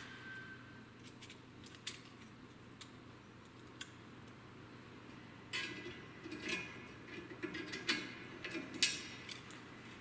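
Steel snap ring being worked into the groove at the end of a hydraulic cylinder tube with snap ring pliers: a few scattered metallic clicks, then from about five and a half seconds a run of clicks and scrapes of metal on metal, with the sharpest click near the end.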